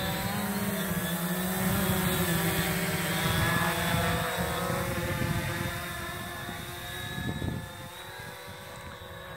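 Quanum Spider 700 multirotor drone's electric motors and propellers humming in flight, a stack of steady tones that shift slightly in pitch as it manoeuvres. The hum fades from about six seconds in as the drone flies off.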